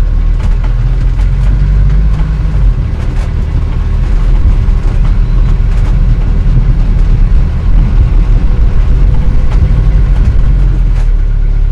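Vintage car, a 1940-era automobile, being driven: a steady low engine rumble with scattered clicks and rattles, the loudness turning choppier from about four seconds in.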